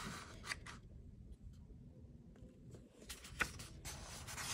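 Quiet handling of a picture book: a few soft clicks and taps on the paper, then the page rustling as it is lifted and turned near the end.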